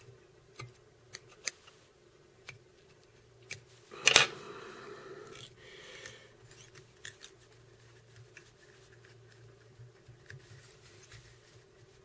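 Small fly-tying scissors snipping off excess ostrich herl and other materials at the hook: a string of sharp snips in the first few seconds, the loudest about four seconds in, then fainter clicks from handling.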